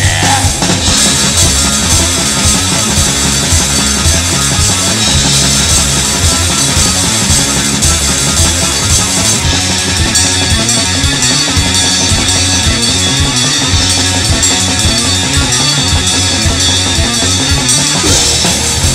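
Black/thrash metal playing loud and steady: distorted electric guitars, bass and a driving drum kit.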